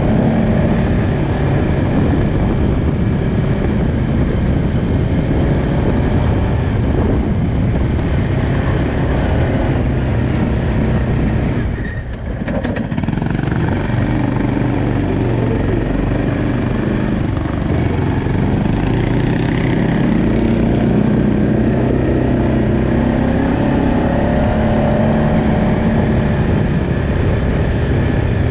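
Quad bike (ATV) engine running steadily under way, its pitch wandering up and down with the throttle. About twelve seconds in the engine note dips briefly, then picks up again.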